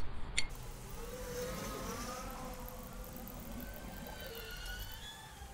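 Faint siren wailing over a low traffic rumble.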